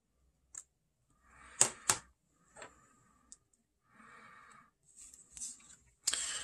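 Short scratchy strokes and light clicks of a hobby knife cutting a decal sheet on a cutting mat, and of small tools being put down and picked up, with two sharper clicks about a second and a half in.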